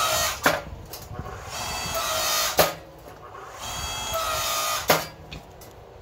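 Electric motor and hydraulic pump of a small 4–5 ton electric log splitter used as a forge press, whining in repeated presses of about a second each. Each press ends in a sharp click, three clicks about two seconds apart.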